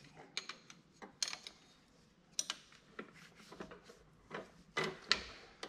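Wrench and metal hose fittings clinking: several separate, irregular clicks and clinks with short gaps between, as a power steering line fitting is worked on.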